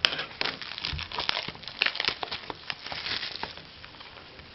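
Plastic wrapping on a trading-card box being crinkled and torn open by hand, a dense run of crackles and rustles.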